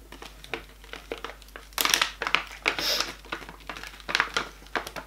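Clear plastic treat pouch crinkling and rustling in the hands, a run of irregular crackles that is loudest about two seconds in.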